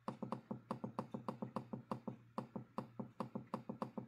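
Rapid, even clicking on a computer's controls, about seven clicks a second with a brief break a little after two seconds in, as the embroidery software's stitch simulator is stepped back through.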